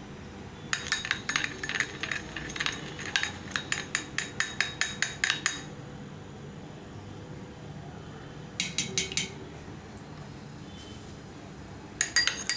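Metal spoon stirring liquid in a small glass bowl, clinking rapidly against the glass with a bright ring, about six clinks a second. One run lasts about five seconds, a short burst comes near the middle, and another run starts near the end.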